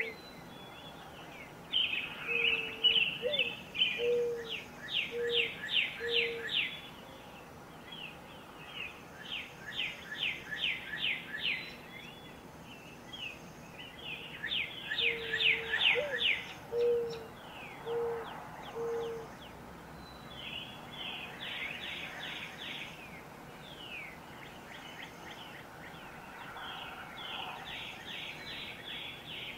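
Woodland birds singing in spring: quick high trills of down-slurred notes come in bursts every few seconds. Twice a lower series of four or five short, evenly spaced notes joins them, over a faint steady hiss of ambient noise.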